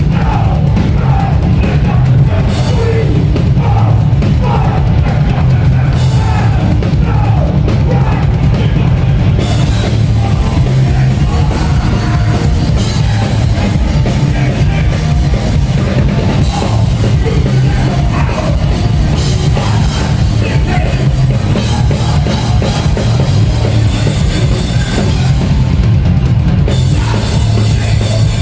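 Hardcore punk band playing live and loud, with driving drums and shouted vocals over roughly the first third. From about ten seconds in, a bright wash of cymbals fills the top end.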